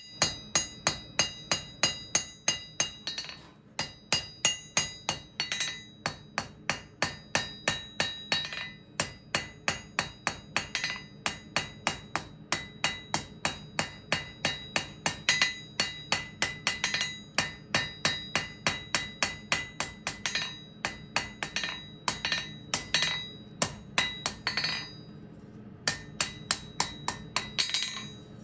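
Hand hammer forging red-hot mild steel flat bar on a steel anvil: sharp ringing blows at about two to three a second, in runs with a few short pauses.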